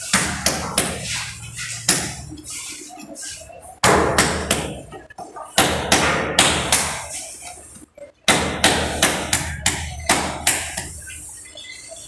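A ceramic wall tile being tapped and pressed into its bed of cement mortar. Runs of sharp knocks come in four bursts with short pauses between them.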